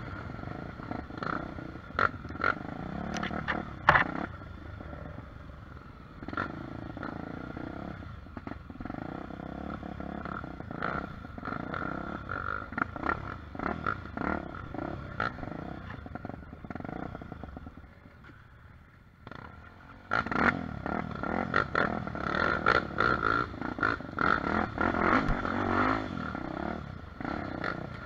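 Single-cylinder trail motorcycle engine (a Tornado 350cc) running under varying throttle, with frequent knocks and rattles over rough ground. It drops lower and quieter around 17 to 19 seconds in, then picks up sharply again at about 20 seconds.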